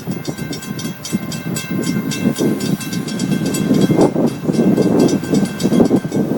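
Florida East Coast Railway freight train cars rolling past, with a dense rumble and rapid wheel clatter and a steady high-pitched squeal. The rolling noise gives way to wind at the very end.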